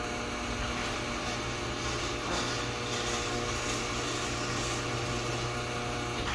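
Craftsman 1/2 HP chain-drive garage door opener motor running with a steady electric hum.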